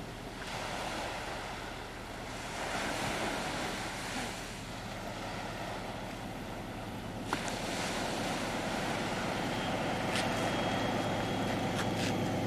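Surf washing on the shore with wind on the microphone, while an approaching diesel High Speed Train (InterCity 125) grows louder: its steady engine hum rises through the second half. A single sharp click comes about halfway through.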